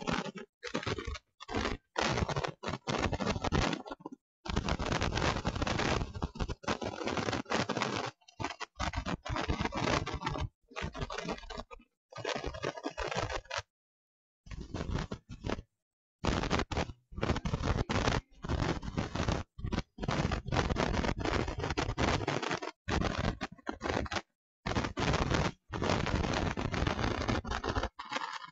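Harsh, even scratchy noise that cuts out abruptly into dead silence many times over, sometimes for a second or more. It sounds like a broken or badly encoded audio track rather than the sound of the ring.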